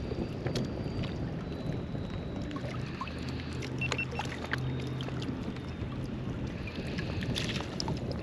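Water lapping and sloshing around a wader's legs with wind on the microphone, broken by scattered small clicks as metal pliers work at a fish in a landing net.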